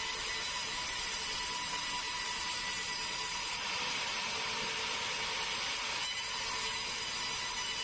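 Sawmill saw running steadily: an even whine of several fixed tones over a constant hiss.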